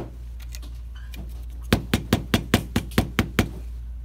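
A run of about eight sharp knocks, roughly five a second, in the second half: the circuit board of a PS4 power supply (ADP-160CR) being rapped on its edge against the workbench.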